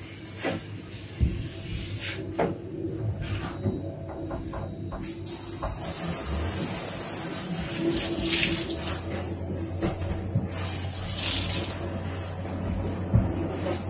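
Handheld shower head spraying water into a bathtub to rinse it, a steady hiss that starts about five seconds in. Before that there are a few scattered knocks and clatters.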